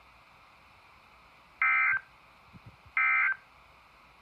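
Midland NOAA weather radios sounding the EAS/SAME end-of-message code: two short, identical bursts of buzzy digital data tone about a second and a half apart. They mark the end of the severe thunderstorm warning broadcast.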